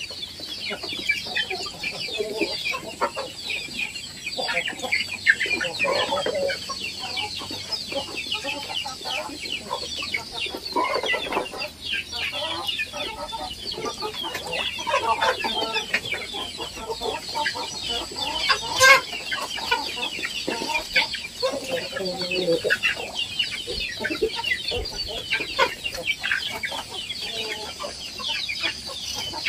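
Indonesian kampung (village) chickens clucking, with many high chirps all through. One sharp knock about two-thirds of the way in.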